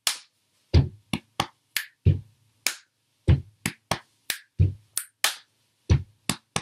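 Body percussion in a repeating pattern about every 1.3 seconds: a low foot stomp on the floor, then a chest pat, finger snaps and hand claps.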